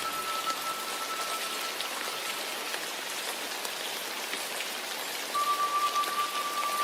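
Steady rain falling, with a faint high ringing tone held through the first few seconds and another coming in about five seconds in.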